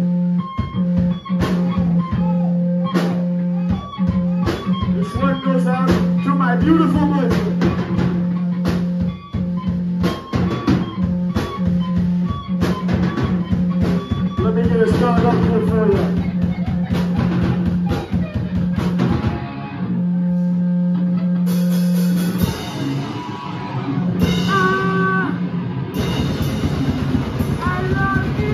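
Live rock band playing loudly: rapid drum kit hits and electric guitar over a steady low droning note. The texture changes about three-quarters of the way through, and a voice comes in near the end.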